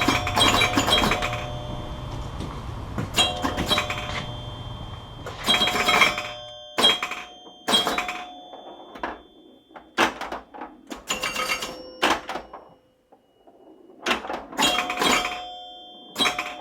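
Metal tools clattering and ringing against each other, in about a dozen separate bursts. A low steady hum sits under the first few seconds, then stops.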